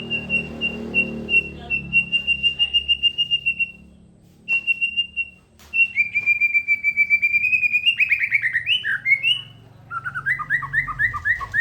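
A songbird singing in long, fast high-pitched trills that stop and start. Near the end it switches to a lower run of quick repeated falling notes.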